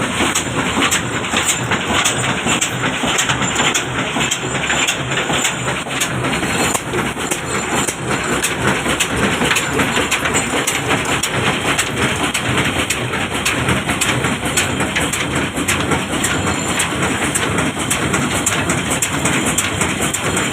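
Old stationary diesel engine running a stone flour mill. It runs steadily with a regular knocking beat, over the mill's grinding noise.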